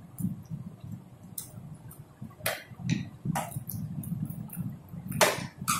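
Eating sounds: short, irregular wet clicks and smacks from chewing and from fingers mixing rice and curry, about seven in a few seconds, over a low steady hum.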